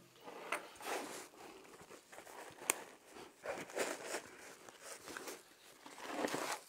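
Faint crinkling and rustling of packaging being handled as accessories are lifted out of a case, with a sharp click about two and a half seconds in.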